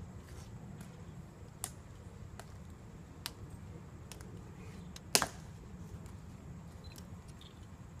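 Sharp, isolated clicks and snaps from ceremonial guards' drill at a changing of the guard: a few faint ones, then a loud ringing snap about five seconds in and another at the very end, over a low steady background rumble.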